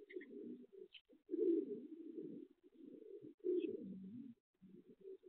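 Racing pigeons cooing: a run of low, rolling coos, each about a second long with short gaps between them. A few brief, faint high chirps of a smaller bird come in over them.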